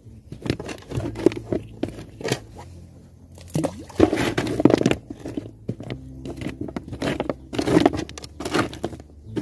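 Hand rummaging through a tub of live, mud-coated seed mangrove clams (vọp), the shells clacking and grinding against one another in irregular clusters, busiest about four seconds in and again near the end.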